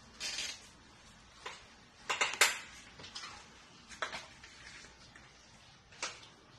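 A few sharp clicks and knocks from handling a Pioneer SX-440 receiver's controls, the loudest a quick pair a little past two seconds in. One comes about four seconds in as the input selector knob is turned. No music is playing.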